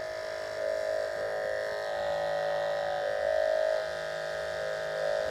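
Electric dog grooming clippers running with the blade tip dipped in blade wash, a steady buzzing hum whose sound changes with the liquid as the moving blade flushes out leftover hair.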